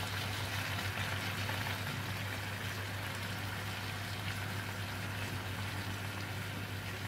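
Stir-fried cabbage, snow peas, carrots and pork sizzling and simmering in the water the vegetables have released, in a large pan as they are tossed. A steady low hum runs underneath.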